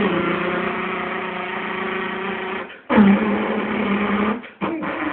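A person imitating a Volkswagen Beetle's engine with the voice: a steady buzzing drone held for about three seconds, broken off briefly for breath, then taken up again twice.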